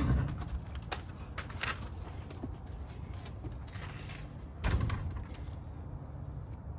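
The truck's front wheel and tire being pulled off the hub: a sharp knock at the start, then a heavy low thud a little under five seconds in as the wheel is handled and set down.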